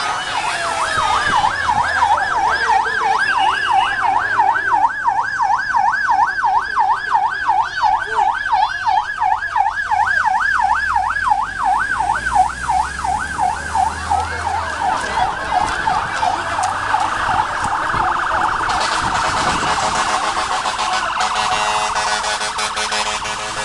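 Fire truck siren in a fast warble, its pitch rising and falling about three times a second as the truck drives past; about 17 seconds in the warble turns faster and blurs.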